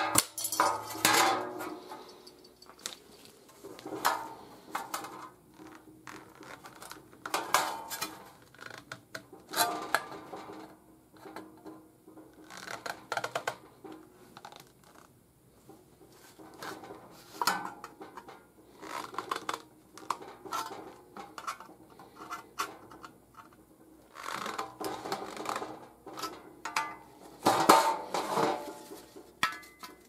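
Aviation tin snips (compound-action, right-cut) cutting thin sheet steel in short, irregular snips, with the sheet clanking and scraping against a metal stand between cuts.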